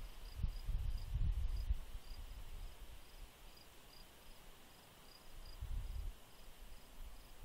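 A cricket chirping steadily, about three short high chirps a second, over uneven low rumbling that comes and goes.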